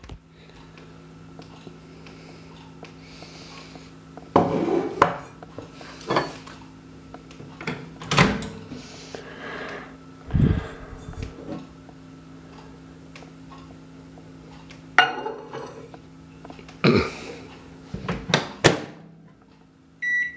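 Dishes and crockery knocking and clattering about eight times in a kitchen, over a steady low hum from the running Swan microwave. The hum stops near the end, followed by a short electronic beep.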